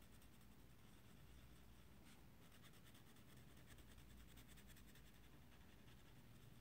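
Faint scratching of a pink wax crayon on paper in quick short strokes, colouring in a small area, a little denser from about two seconds in.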